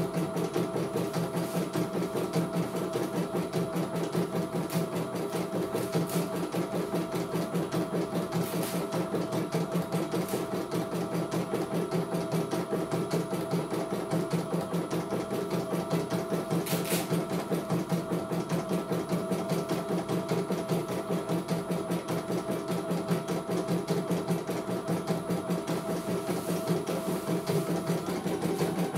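CNY E900 portable computerised embroidery machine stitching a design on hooped fabric: a fast, even needle rhythm over a steady motor hum.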